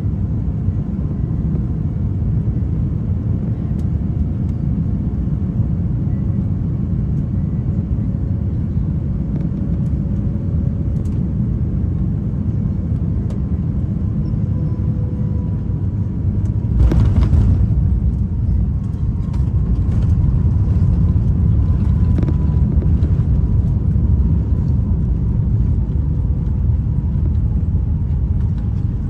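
Airbus A350-900 cabin noise: a steady, loud rumble of engines and airflow with faint steady tones. About two-thirds of the way through, a sudden louder rush sets in, and the rumble stays stronger afterwards.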